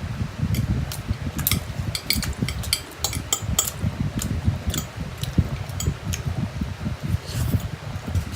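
Close-miked chewing of spicy Korean instant noodles: a steady run of soft low thuds from the chewing, with many sharp wet mouth clicks, and a short slurp near the end.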